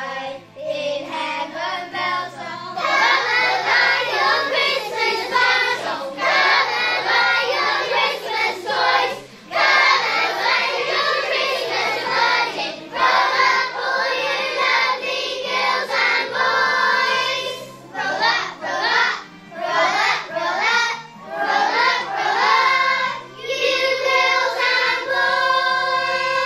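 A group of young children singing a song together, with a steady instrumental accompaniment underneath.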